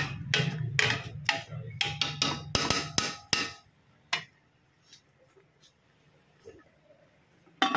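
A quick run of sharp knocks and clinks over a low steady hum, then the sound cuts off to near silence about three and a half seconds in.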